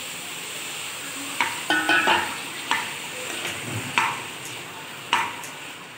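Steel ladle stirring chopped ridge gourd in a kadhai, scraping and knocking against the pan several times over a steady sizzle of frying masala.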